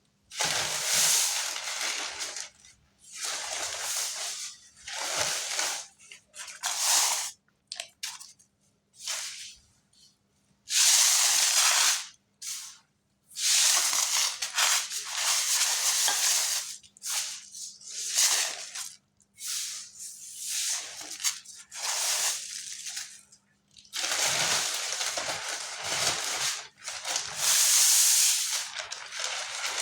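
Cement chunks crumbling and crunching in repeated gritty bursts, each from a fraction of a second to about two seconds long, with short silent gaps between them.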